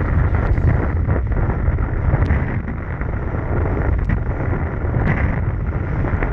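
Wind buffeting the microphone of a camera on a moving kiteboarder, over the hiss and splash of the board cutting through choppy water, with a few sharp splashes.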